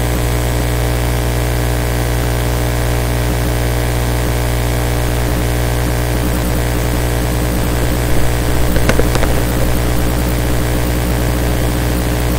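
Loud, steady electrical mains hum and buzz with many overtones, picked up in the recording's microphone line. A few brief, louder noises break in about eight to nine seconds in.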